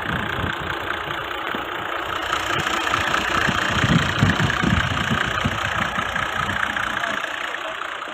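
Toyota Land Cruiser engine idling with the hood open, mixed with the whirr of its belt-driven accessories. It grows louder for a couple of seconds in the middle, close to the spinning drive belt and pulleys.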